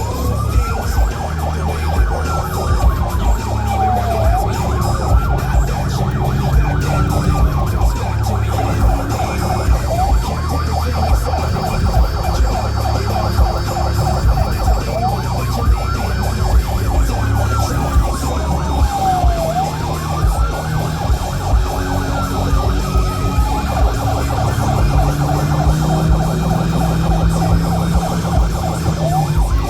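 Police car siren switching between a slow wail that rises and falls over a few seconds and a rapid yelp, over a steady low rumble of engine and road noise.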